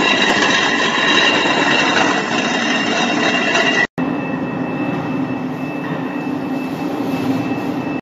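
Electric walk-behind concrete floor grinders running with diamond grinding shoes on concrete: a steady machine noise with a high whine. It cuts out for a moment about four seconds in and resumes a little quieter, with a lower hum.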